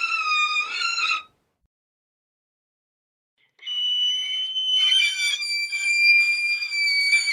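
High-pitched eerie horror sound effects. A shrill tone with overtones, sagging slightly in pitch, cuts off about a second in. After about two seconds of silence a new shrill steady tone starts, steps down to a lower pitch about a second later and goes on with a noisy shimmer around it.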